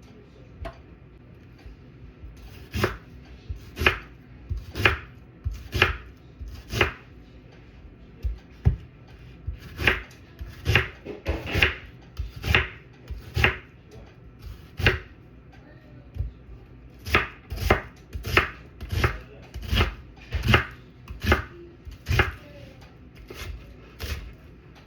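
Knife chopping food on a cutting board: single sharp knocks about once a second, in three runs separated by short pauses.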